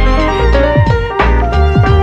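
Background music with a steady beat: sustained melodic notes over a deep bass and regular falling-pitch drum hits.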